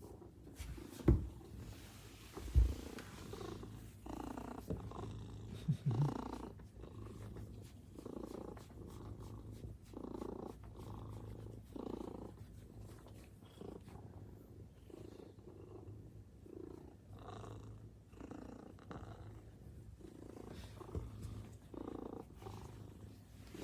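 Maine Coon cat purring close up, the purr swelling and fading with each breath about once a second. Two short low thumps sound in the first few seconds.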